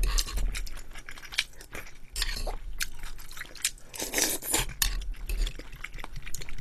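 Close-miked mouth sounds of a person eating pork and rice soup: wet chewing and eating noises, with many small clicks of a spoon against the bowl and a denser noisy stretch about four seconds in.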